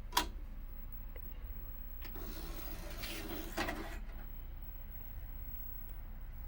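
Built-in DVD drive of a Toshiba MD20P1 CRT TV/DVD combo: a sharp click, then about two seconds of motorised mechanical whirring as the disc tray closes and loads the disc. A steady low hum runs underneath.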